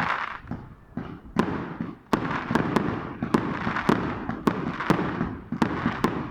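Fireworks going off: an irregular string of sharp bangs over steady crackling, sparse at first and coming thick and fast from about two seconds in.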